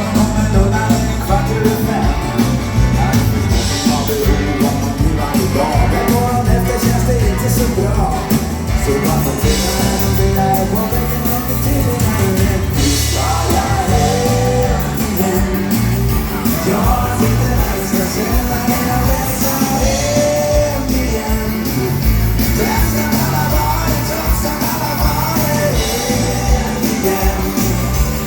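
Dance band playing a rock and roll song with a lead singer over a steady beat.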